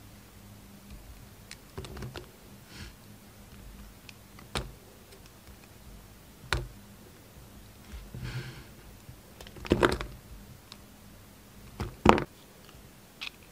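Utility knife blade cutting into a bar of soap: scattered short, crisp cracks as slivers break off, with soft scraping in between. The loudest cracks come about ten and twelve seconds in.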